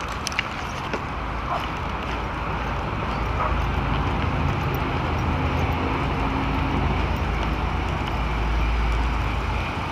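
Steady low rumble of road and vehicle noise outdoors, building gently, with a few light clicks.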